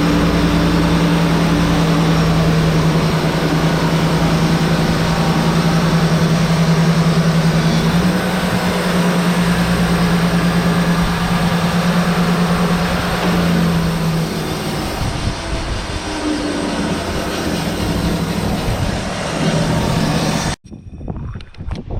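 Wood-Mizer LT35HD portable band sawmill running, its engine droning steadily while the band blade saws through a red oak cant. The engine note changes about two-thirds of the way through. The sound cuts off abruptly near the end.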